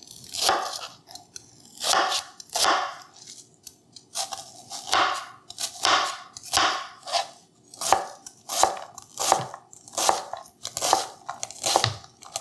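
A forged chef's knife dicing an onion on a plastic cutting board: repeated crunchy cuts through the onion layers, each ending in a tap of the blade on the board. The cuts come sparsely for the first few seconds, then settle into a steady rhythm of one to two a second.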